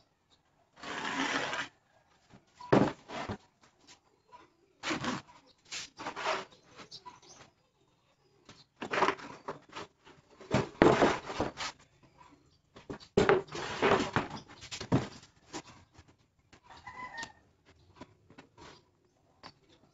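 Plywood panels being handled and stacked: a series of irregular scraping and sliding bursts as boards rub and knock against each other.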